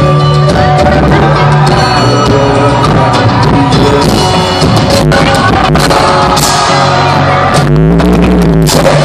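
Loud live concert music played through a large hall's PA system, with a voice singing over it. Near the end a deep bass glide rises and falls.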